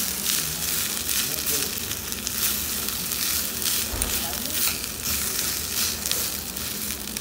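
Fried rice with salmon roe and kimchi sizzling in a piping-hot earthen pot, with a metal spoon stirring and scraping through it. The steady sizzle comes from the pot still being hot enough to keep frying the rice.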